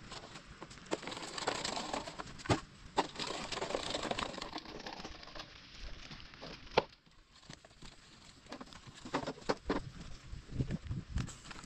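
Irregular knocks, crunches and scrapes on stony, muddy ground: a rustling crunch for the first few seconds, scattered sharp knocks with the loudest near the middle, then a run of duller knocks near the end.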